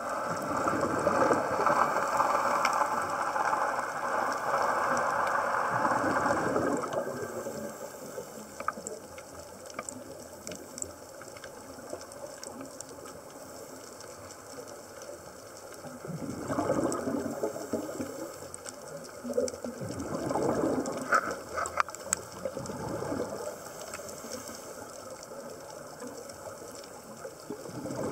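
Scuba diver's exhaled bubbles rising from the regulator, heard underwater through the camera housing as bubbling, gurgling bursts. There is one long burst at the start, two shorter ones past the middle and another at the very end. Between them the water is quieter, with faint scattered clicks.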